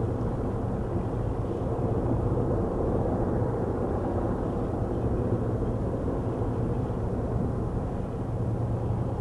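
Light bush plane's piston engine and propeller droning steadily as it flies low over the water.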